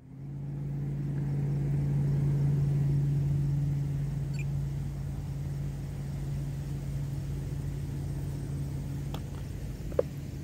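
Steady low hum. About ten seconds in, a single sharp click as an EC5 battery connector is plugged in.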